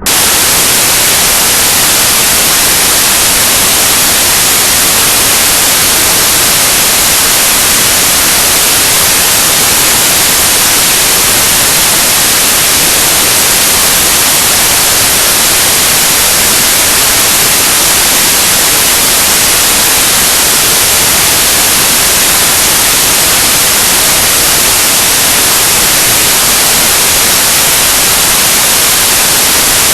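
Loud television static: a steady, even hiss of white noise from a TV with no signal, unchanging in level and character.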